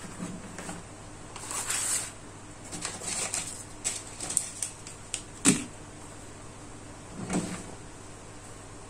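Handling noise of a DJI Mini 2's plastic remote controller and a foam-lined hard carrying case being packed: rustling, a run of light clicks and taps, a sharp knock about five and a half seconds in, and a duller thump near seven seconds.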